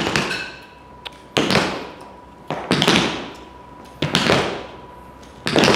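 Tap shoes striking the floor in a short repeated step pattern: five heavy strikes at even spacing, about one every second and a half, each ringing briefly in the room.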